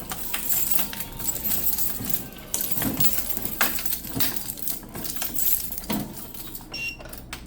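Irregular clicks, clinks and rattles of a snack vending machine being handled and restocked by hand.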